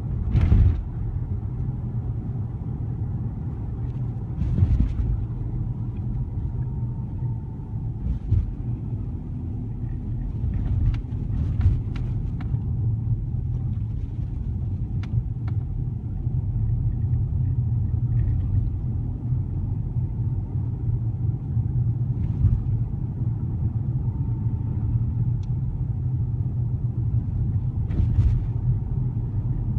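Car interior with the windows closed while driving: a steady low road and engine rumble, with occasional small knocks and rattles.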